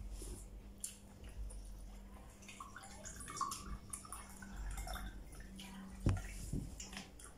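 Water poured from a plastic pitcher into a small drinking glass, splashing unevenly for a few seconds, followed by a single sharp knock about six seconds in.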